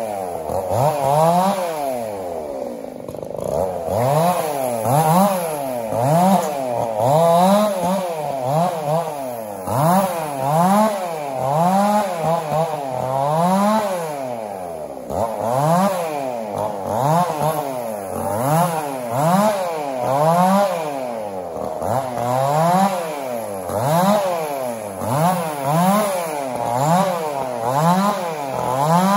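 Two-stroke chainsaw cutting through a felled log, the engine pitch rising and falling about once a second as the chain bogs under load and picks up again.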